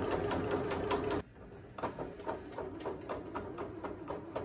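Domestic electric sewing machine stitching fast through fleece, a steady motor hum with rapid needle strokes, stopping abruptly about a second in. After it stops come quieter, irregular light clicks.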